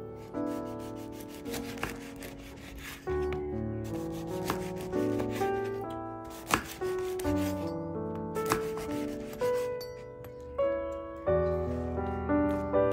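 A knife sawing through a crusty baguette, with rasping strokes and a few sharp knocks as the blade reaches the wooden cutting board, over background music of held notes.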